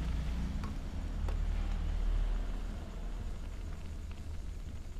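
Egg noodles cooking in a pan over a gas burner: a steady low rumble with a light sizzling hiss, and a utensil knocking against the pan twice within the first second and a half.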